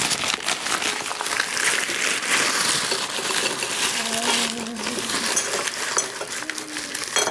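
A paper candy bag crinkling as it is shaken and upended, with loose wrapped candies pouring out and clinking into a ceramic bowl.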